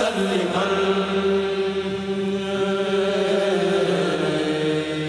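A kourel, a Mouride men's chanting group, chanting an Arabic xassida in unison and holding one long drawn-out note. The note steps slightly lower near the end.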